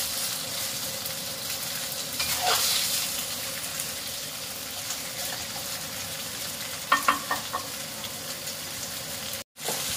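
Chicken pieces sizzling in hot oil in a stainless steel wok as they are stir-fried, a metal spatula scraping and turning them. A few sharp clacks of the spatula against the wok about seven seconds in.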